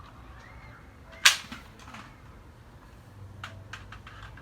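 One sharp plastic snap about a second in, then a few lighter clicks near the end, from the toy ball guns being fired and handled.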